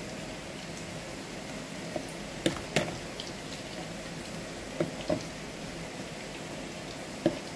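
A metal fork clicking and tapping against a plastic bowl about five times as egg-washed chicken cubes are dropped into breadcrumbs and moved about, over a steady hiss.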